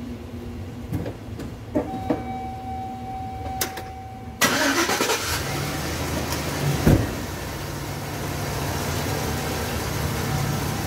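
A few clicks and a steady tone, then the 2006 Chevy Express van's 5.3 L LS V8 starts suddenly about four seconds in and settles into a steady idle, with one thump a few seconds after it catches.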